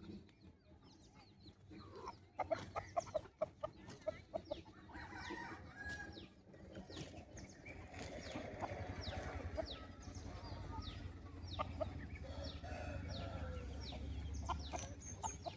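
Rooster clucking as it forages, with a quick run of short clucks about two and a half seconds in, then scattered softer clucks.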